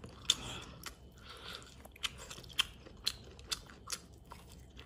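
Close-up chewing of pork ribs on the bone, with a handful of sharp crunches and clicks spread through the chewing.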